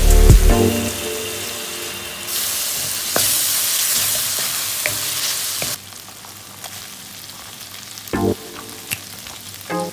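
Ground meat and onions frying in a hot wok with soy sauce just poured in, stirred with a wooden spatula: a loud sizzle starts about two seconds in and drops to a quieter crackle with spatula scrapes about six seconds in. Near the end there is a short thump as a load of julienned carrots drops into the wok.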